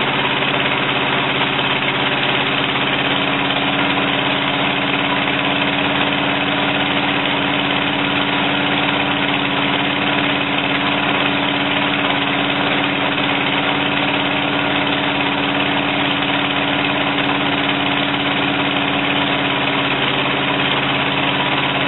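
Small engine of a homemade tracked dumper idling steadily.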